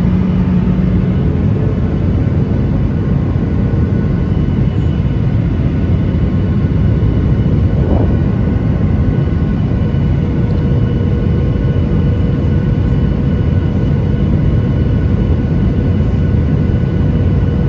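Boeing 737-900ER airliner's CFM56 jet engines and airflow making a steady, loud rumble, with a few faint steady whining tones above it.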